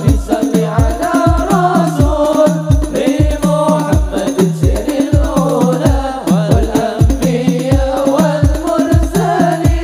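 Hadroh ensemble performing: men singing in unison into microphones over frame drums, with deep drum strokes about two or three a second.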